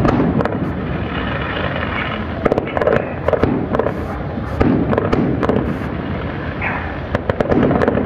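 Fireworks display: aerial shells bursting in quick succession, giving a continuous booming rumble broken by many sharp bangs and crackles.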